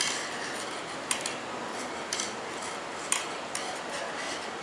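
Metal knitting needles clicking against each other as stitches are knitted plain, a few sharp light clicks roughly once a second.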